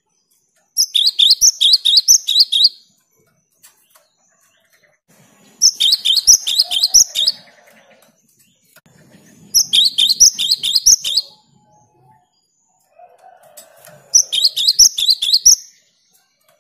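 Cinereous tit (gelatik batu) singing: four bursts of rapid, repeated high notes, each lasting about two seconds, with a few seconds' pause between them.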